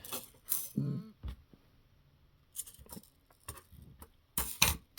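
Small metal screws clinking and rattling as they are picked out and set down one at a time, a scatter of short clicks with two louder ones near the end.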